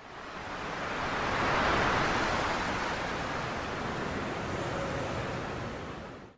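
Steady rushing noise with no tone or rhythm in it, swelling in over about two seconds and fading out near the end.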